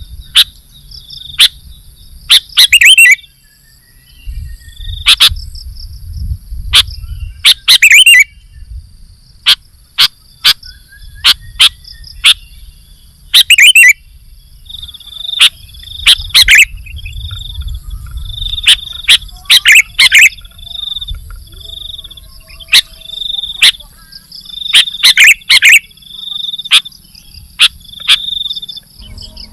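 Sooty-headed bulbul giving loud, sharp, brief calls again and again, some in quick clusters, over a steady high insect buzz.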